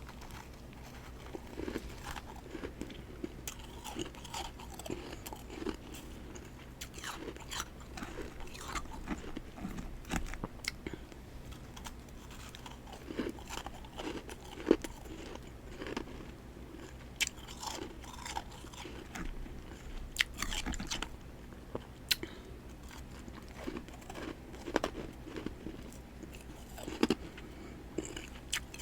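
Close-up chewing and crunching of freezer frost, with many short crisp crackles and bites following one another irregularly throughout.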